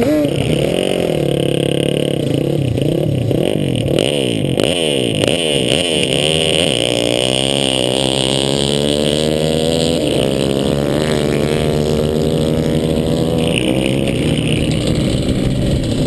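Honda TRX250R's two-stroke engine, close to the microphone, revved up and down several times, then running at a steadier speed with its pitch wavering slightly.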